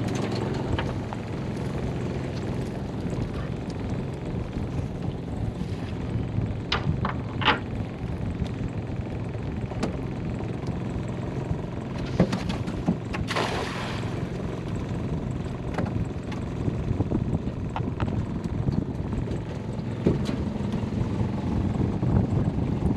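Boat motor running steadily, with wind on the microphone. A few short clicks and knocks come about a third of the way in and again around the middle.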